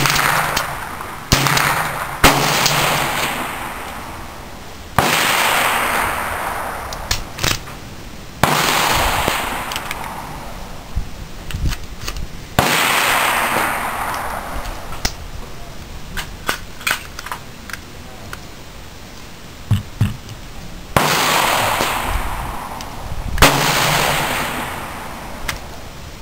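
Single shots from an AR-15 rifle fitted with a CMMG .22 LR conversion kit, about eight of them spaced irregularly, from about a second to several seconds apart, each trailing off in a long echo. Fainter sharp clicks fall between some of the shots.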